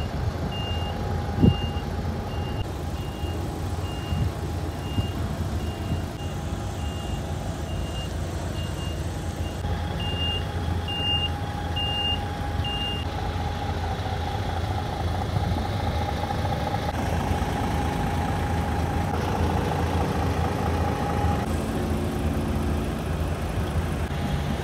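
Heavy diesel truck engine idling steadily, with a vehicle's reversing alarm beeping at a regular pace through the first half, then stopping.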